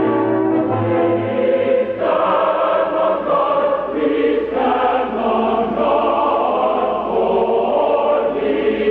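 Choral music: voices singing held chords that change every second or two, at a steady level.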